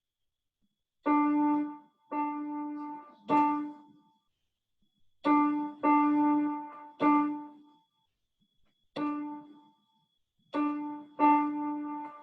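Electronic keyboard playing one piano-like note over and over in short and long presses: Morse code dots and dashes, with longer pauses marking the gaps between letters.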